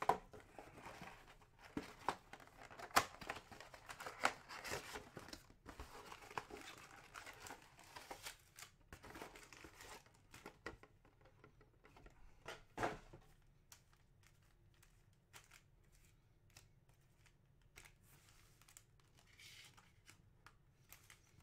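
Trading-card packs and a Panini Prizm mega box being opened by hand: crinkling and tearing of foil wrappers and cardboard, with cards being shuffled and handled. The rustles and clicks come thick at first and thin out after about thirteen seconds.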